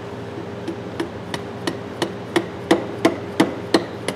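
Hammer tapping on the steel swivel head of a breaker bar, a steady run of light blows about three a second that grow louder toward the end.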